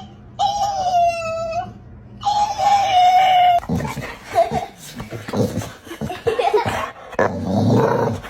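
A dog howling: two long, steady howls of about a second each, then from about halfway through a jumble of shorter, uneven vocal sounds.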